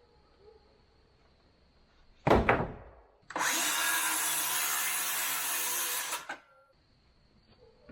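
A sharp knock about two seconds in, then a power tool runs on wood for about three seconds, starting and stopping abruptly.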